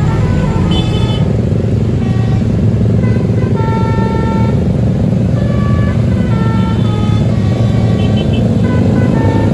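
A bus engine's loud, steady rumble with a multi-tone telolet basuri horn playing a melody of short held notes over it.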